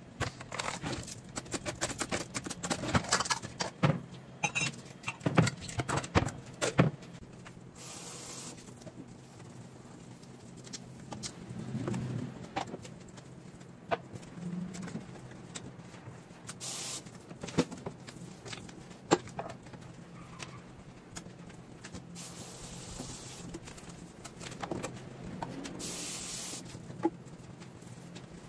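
Washing up by hand at a kitchen sink: dishes, glasses and utensils clatter and knock, busiest in the first seven seconds. A few short hissing bursts of water from the tap come in between.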